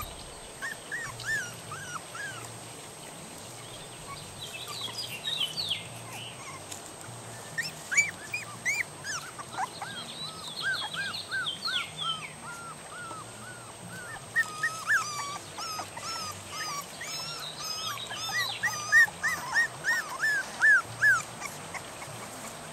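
Norrbottenspets puppies about three and a half weeks old whining: short, high, arching cries over and over, coming thicker in the second half. The puppies are unsettled and want their mother to feed them.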